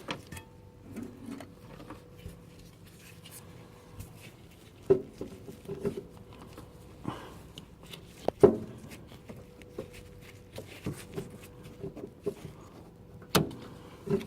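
Scattered small knocks and clicks of hands and tools working a rubber fuel hose onto a car's steel fuel pipe, with sharper knocks about five, eight and thirteen seconds in, over a faint steady hum.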